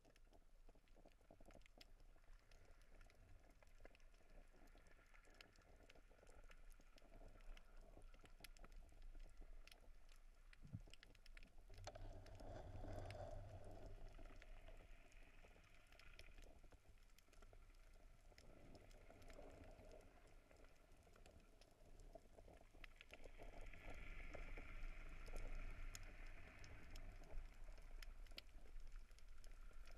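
Faint underwater ambience heard through a GoPro's waterproof housing: scattered clicks and crackles over a low rumble, a little louder around the middle and again near the end.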